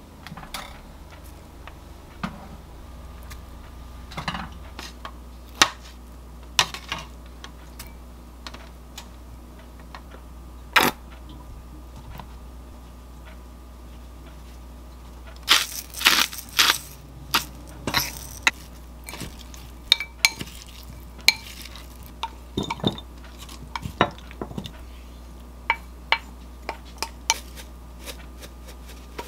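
Kitchen utensils clinking and knocking against glass and ceramic bowls while salad ingredients are added and mixed. The sharp clinks are scattered, with a quick run of them about halfway through, over a faint steady hum.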